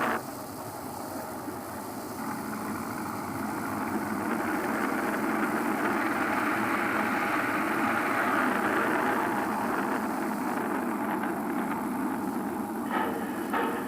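A vehicle engine running with a steady rumble that slowly grows louder over several seconds and then eases a little. Music starts near the end.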